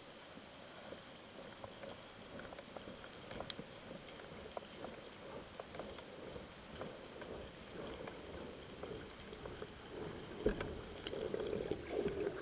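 Underwater ambience through a speargun-mounted camera's housing: faint scattered clicks and crackles over a low hiss. It grows louder near the end, with water rushing past as the diver swims upward.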